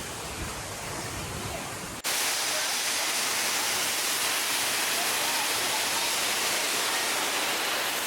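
Steady rushing of a large waterfall, a dense even hiss. About two seconds in it jumps suddenly from a quieter, lower outdoor rush to the full loud rush of the falls.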